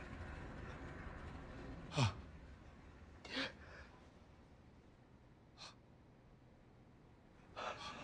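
A man's sharp gasps and breaths, three short ones about two, three and a half, and five and a half seconds in, over a faint low hum that fades after the first.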